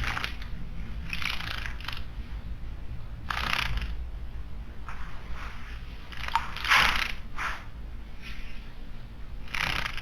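Short, irregular splashy bursts of a small bird bathing in a stone water basin, about six in a few seconds, over a steady low background rumble.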